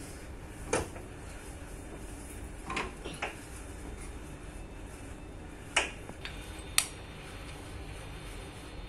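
About five sharp, separate metallic knocks and clinks: an elliptical trainer's steel frame parts being handled and fitted together, and bolts and washers being picked up.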